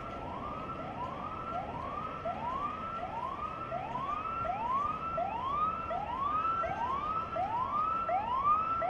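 Fire engine siren sounding in quick repeated rising sweeps, about three every two seconds, over a steady low rushing background.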